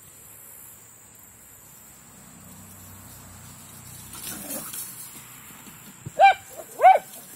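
Silken Windhound giving two short, high-pitched barks about a second apart near the end, during rough play.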